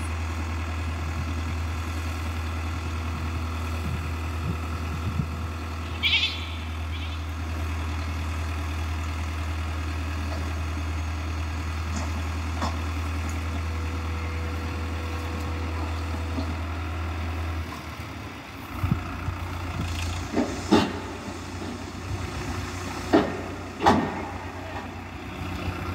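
Eicher tractor's diesel engine running steadily while it drives the hydraulic tipper raising the loaded trailer bed. About eighteen seconds in the engine note drops, and a few sharp knocks follow near the end.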